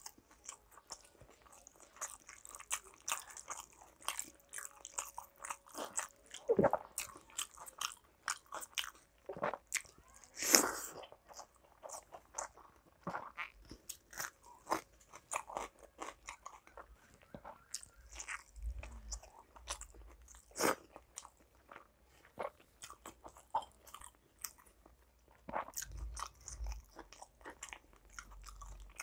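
Close-miked eating by hand: wet chewing and smacking of water-soaked rice with frequent crunchy bites, the loudest crunch about ten seconds in.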